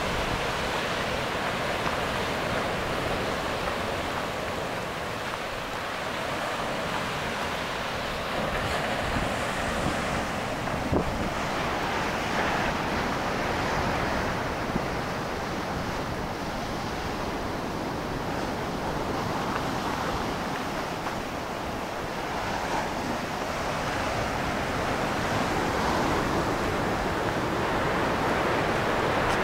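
Ocean surf breaking on the beach below, a steady wash of noise, with wind blowing across the microphone in gusts.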